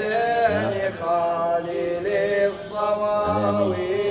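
Male voice chanting a Shia nawha (mourning lament) in a slow melody of long held, sliding notes.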